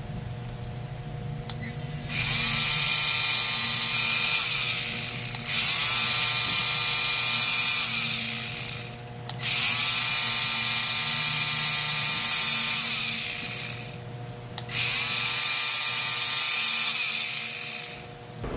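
3Doodler 3D pen's filament-feed motor running in four long stretches of a few seconds each, a grinding whir, with the pen's cooling fan humming steadily underneath.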